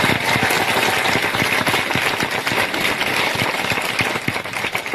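Audience applauding: dense clapping from many hands.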